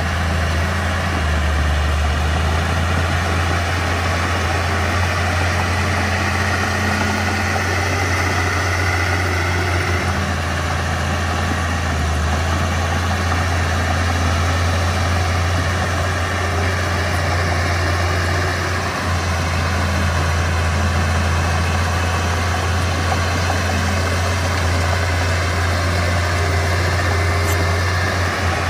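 Mitsubishi BD2F bulldozer's diesel engine running steadily, with a strong deep hum and a broad mechanical noise over it.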